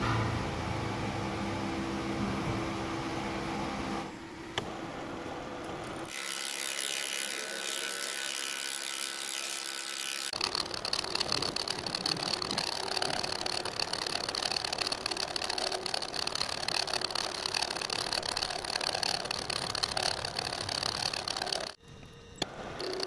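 Milling machine running with a form cutter milling gear teeth into an SKD61 steel shaft: steady machine running with the grinding chatter of the cut. The sound changes abruptly several times.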